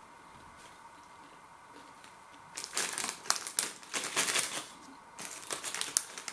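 Crisp packet of snack bites rustling and crinkling as it is handled. The crinkling comes in two stretches of sharp crackles, starting about two and a half seconds in.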